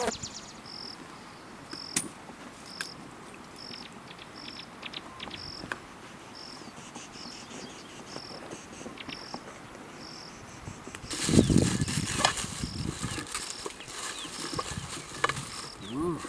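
An insect chirping steadily, a short high chirp about once a second. About eleven seconds in, a louder rustling, crackling noise with a few thuds joins it.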